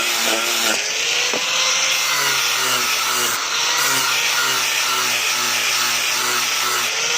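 Electric grinder working steel: a loud, continuous grinding hiss with a motor pitch that sags and recovers as the blade is pressed on.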